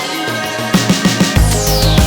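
Electronic background music. The bass drops out and a quick run of drum hits builds. Heavy bass then comes back in, with a falling synth sweep.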